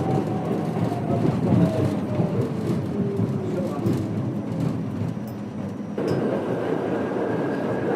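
Subway train running, heard from inside the car: a steady rumble and rattle of wheels on track, with a motor whine falling in pitch over the first few seconds. About six seconds in the sound changes abruptly and a steady high whine sets in.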